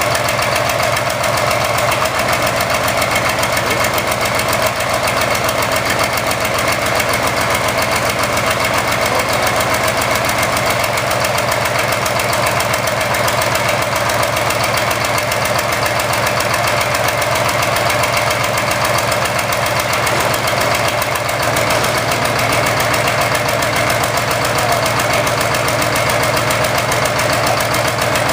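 Engine idling steadily with a fast, even pulsing, on an engine with a misfire.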